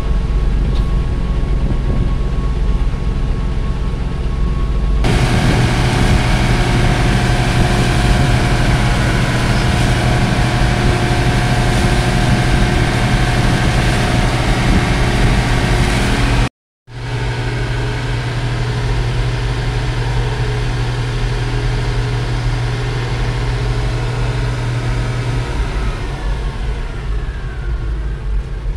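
Hydraulic excavator's diesel engine running steadily under work, heard from inside the cab, its note growing fuller and louder about five seconds in. The sound cuts out for a moment about two-thirds of the way through, and the engine pitch shifts near the end as the machine digs.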